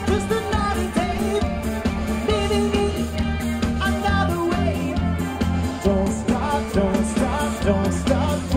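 A live band playing a pop-rock song, with a lead singer over bass and a steady drum beat.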